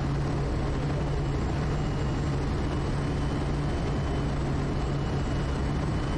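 Quest Kodiak's single PT6A turboprop engine and propeller running at a steady approach power on short final, a constant drone with a strong low hum and a faint high whine above it.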